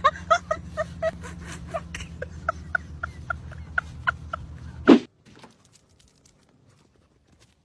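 A dog's short high-pitched yips, repeated about twice a second over a steady low hum. About five seconds in there is a loud thump, and then it goes nearly quiet.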